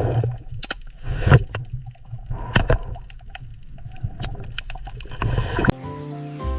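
Water sloshing and gurgling with a low rumble and scattered sharp clicks and cracks. It cuts off suddenly near the end, and music with held notes starts.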